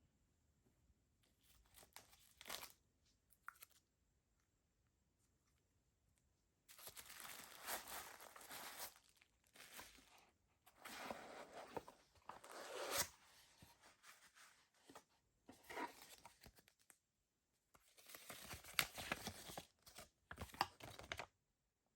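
Toy packaging being torn and crinkled open by hand, in irregular bursts of tearing and rustling broken by short pauses.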